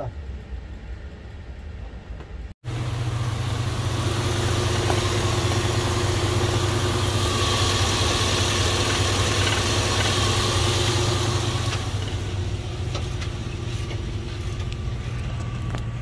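GMC Denali engine idling, heard close in the engine bay, a steady low hum with a hiss over it. It comes in suddenly about two and a half seconds in and eases slightly after about twelve seconds. The air-conditioning compressor is running again now that the shorted 5-volt reference wiring has been repaired.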